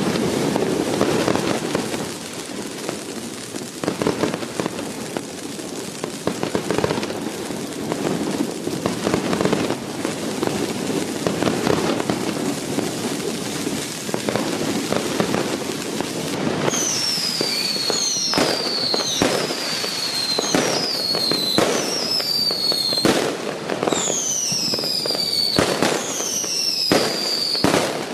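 Firecrackers and fireworks going off without pause, a dense crackle of many sharp bangs. From a little past halfway, high whistles that each fall in pitch come about once a second among the bangs.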